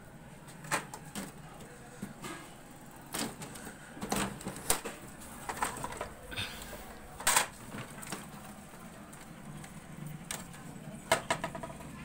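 Irregular clicks, taps and light knocks, with several louder ones, as an HP LaserJet printer is handled and worked at to free a coin stuck inside it.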